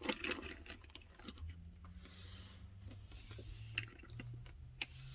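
Faint handling noises: small scattered clicks and soft rubbing as a die-cast toy car and its blister card are handled, over a low steady hum.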